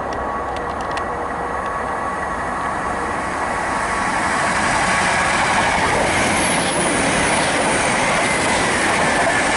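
Great Western Railway Class 800 train passing through the station at speed: a steady rush of wheel and engine noise that grows louder about halfway through and stays loud.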